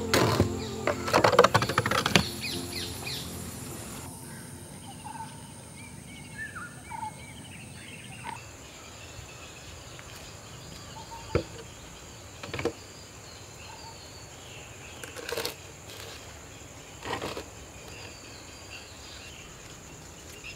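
Outdoor garden ambience with birds chirping now and then over a steady high hiss. A burst of clattering knocks opens it, and a few single knocks follow later.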